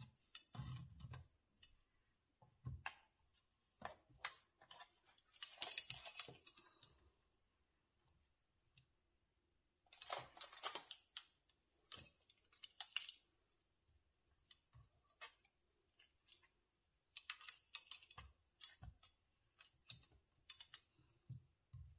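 Quiet, scattered clicks and taps of plastic parts being handled as a ring light is fitted onto its tripod stand, with short bursts of rustling at about 6, 10 and 17 seconds in.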